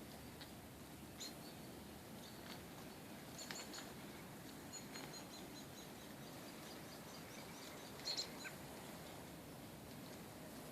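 Wild birds chirping faintly: scattered short high calls, a quick run of repeated notes about halfway through, and the loudest calls about eight seconds in, over a faint steady hiss.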